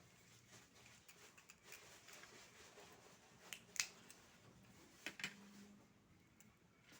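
Quiet oyster-eating sounds: faint handling noises and a few short, sharp clicks of shells or utensils, the loudest about four seconds in and a pair just after five seconds.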